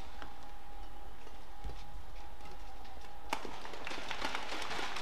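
Badminton doubles rally: rackets striking the shuttlecock in sharp, widely spaced cracks, the loudest a little past halfway, with quicker exchanges near the end.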